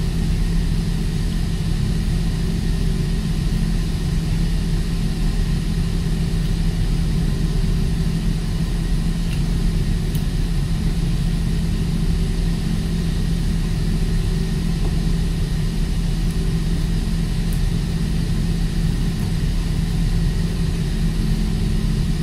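Steady low drone of a ship's running machinery, with a few faint ticks near the middle and later on.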